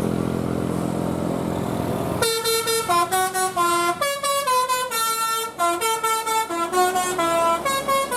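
A bus engine running, then about two seconds in a telolet horn, the multi-note musical air horn of an Indonesian tour bus, starts playing a tune. The notes are short and quick, stepping up and down in pitch, and the tune is still going at the end.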